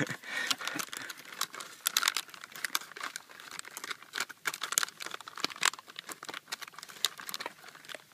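Brown MRE pouch crinkling as hands handle it and work it open, a quick irregular run of sharp crackles.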